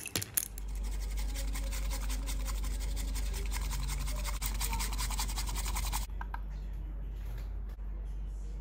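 Bamboo matcha whisk (chasen) whisking matcha in a ceramic bowl: a rapid, steady, scratchy brushing that stops abruptly about six seconds in. A steady low hum runs underneath.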